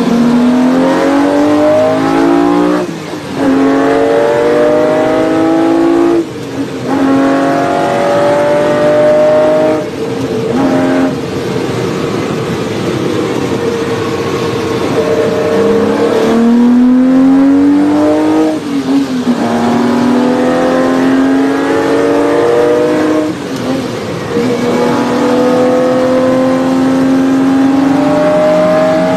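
Ferrari 250 GTO's 3-litre V12 accelerating hard through the gears, its pitch climbing and then falling back at each upshift, about 3, 6 and 10 seconds in. It lifts off and drops in pitch about 16 seconds in, then pulls up through the gears again with shifts near 19 and 24 seconds.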